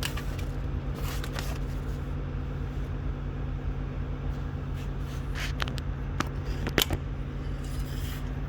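Rustling and scraping of hands working inside a truck's door, pulling at the glued insulation sheet, with several sharp clicks about halfway through, the loudest near the end. A steady low mechanical hum runs underneath.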